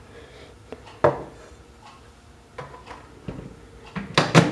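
A series of short knocks and clatters from objects being handled, with two sharper knocks close together near the end, over a faint steady hum.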